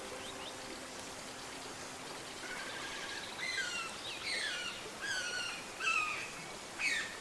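A songbird singing from about a third of the way in, a run of quick falling whistled phrases repeated over and over, over a steady hiss of water. A held low music note carries on faintly at the start.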